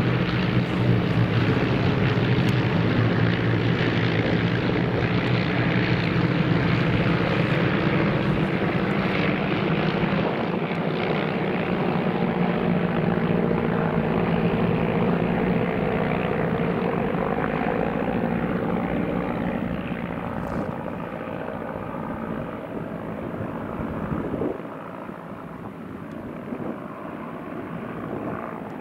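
Propeller engines of nine de Havilland Tiger Moth biplanes flying overhead in formation, four-cylinder Gipsy Major engines making a steady, layered drone. The sound grows fainter in the last third as the formation moves away.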